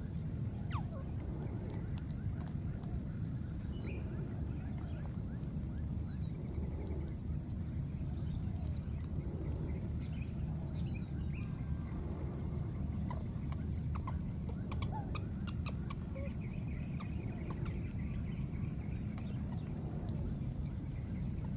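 Baby monkeys giving faint, scattered short squeals and calls while they scuffle, over a steady low rumble.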